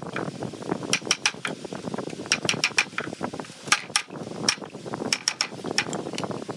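Wooden mallet striking a wood chisel as it cuts a notch into a board: a quick, uneven run of sharp knocks.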